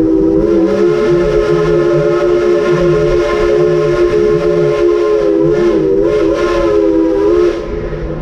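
Steam locomotive's chime whistle sounding one long, steady multi-note blast that cuts off near the end, over a low rhythmic pulse from the moving train.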